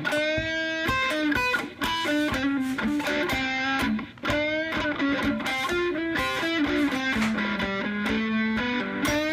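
Background music led by electric guitar, playing a melody of short plucked notes with a steady pulse.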